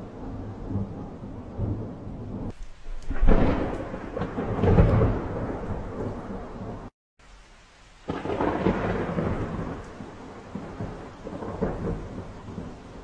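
Rolling thunder from a thunderstorm, with two loud peaks about three and five seconds in. The sound breaks off abruptly for about a second near the middle, then another long roll of thunder starts and slowly dies away.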